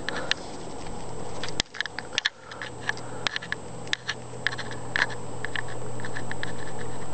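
Household furnace running as a steady hum, with many small clicks and taps scattered over it. The hum drops away sharply about one and a half seconds in and builds back up gradually.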